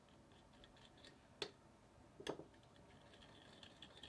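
Faint sounds of a utensil stirring a thick sauce in a small ceramic bowl: two sharp clinks against the bowl near the middle, then light quick ticking and scraping.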